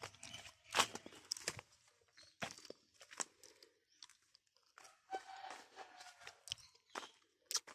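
Footsteps crunching through dry leaves and twigs: irregular crackles and snaps at an uneven pace.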